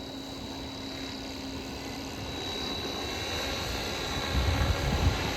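Electric Align Trex 550L Dominator RC helicopter hovering in idle-up 2, its rotor blades and motor giving a steady hum with a constant low tone and a thin high whine. A low rumble swells about four seconds in.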